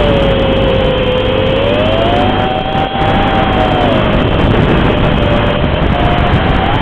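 Racing quadcopter's Cobra 2204 2300kv brushless motors spinning Dalprop 5040 three-blade props: a loud whine over a rushing hiss, its pitch dropping about a second in, rising again around two seconds, dipping near four seconds and climbing near the end as the throttle changes. Heard through the analog FPV video link, so the sound is cut off above the upper treble.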